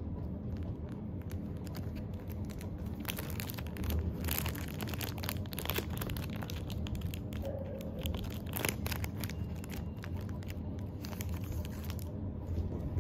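A Pokémon trading-card booster pack's foil wrapper being torn open and crinkled by hand, with a dense run of sharp crackles from about three to nine seconds in, over a steady low hum.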